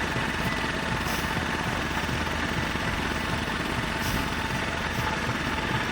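A boat's engine running steadily with a fast, even low throb.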